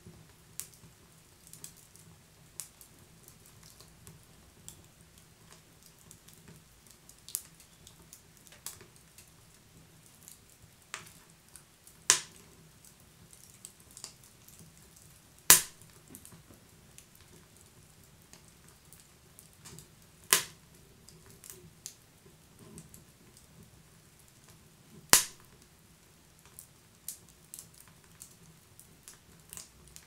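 Wood fire crackling: irregular sharp snaps and pops from burning logs, with four louder pops a few seconds apart, over a faint low steady background.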